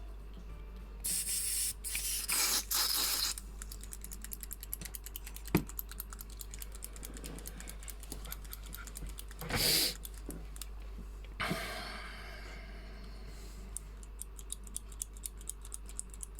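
Small clicks and taps of parts being handled on a workbench, with a few short hissing bursts and one sharp click, over a steady low mains hum.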